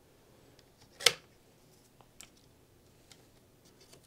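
A sharp click about a second in, then a few faint ticks, from unclipping the laptop's M.2 Wi-Fi card and its antenna cables.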